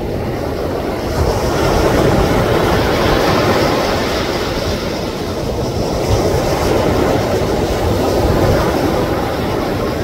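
Ocean waves breaking and washing on a beach, a continuous rush of surf that swells about a second in and again later.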